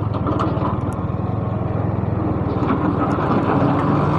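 Motorcycle engine running steadily, a fast even pulse, as the bike is ridden through a slippery muddy stretch.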